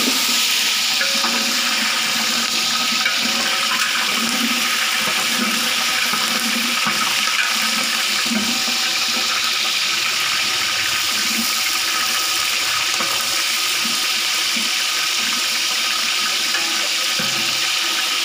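Whole peeled onions sizzling in hot oil in a large pot: a loud, steady hiss of frying.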